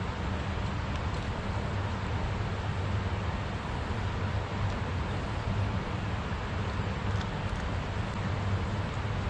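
Steady rush of river water with a low, even rumble underneath.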